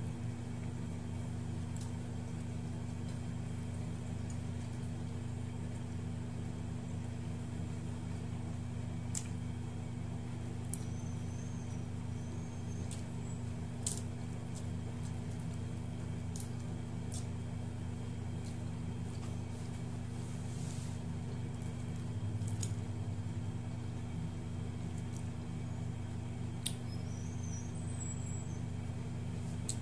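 A steady low machine hum, with a few faint clicks and taps now and then from fish and rice being picked apart by hand.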